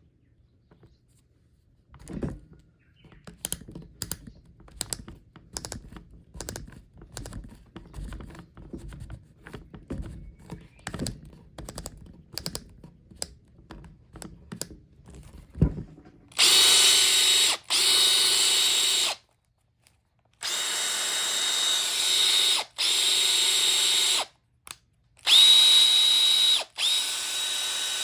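Makita DF481D cordless driver-drill run in five short bursts of a few seconds each, a steady high whine over the motor, with its gear assembly sold as making an abnormal noise. Before the runs come scattered light clicks and knocks.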